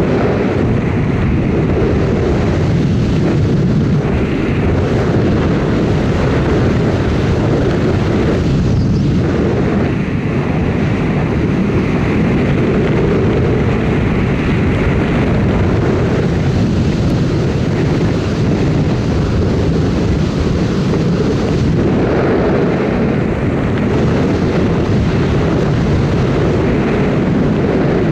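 Steady drone of a jump plane's engine and propeller heard inside the cabin during the climb to altitude, a loud even rumble with no breaks.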